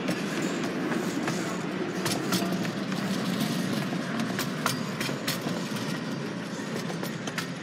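One-third-scale park railway train running, heard from aboard: a steady rumble with irregular sharp clicks of the wheels over the rail joints.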